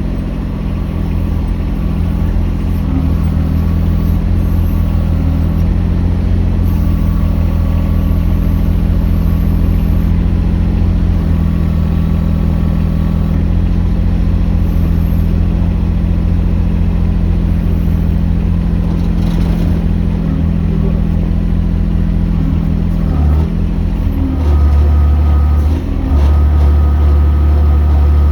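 Mini excavator engine running steadily while digging; about 24 seconds in its note deepens and gets louder.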